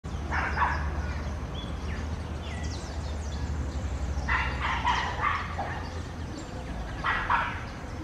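Parakeet giving harsh, scratchy calls in three bursts: shortly after the start, around the middle, and near the end. Thin short chirps are heard between them over a steady low rumble.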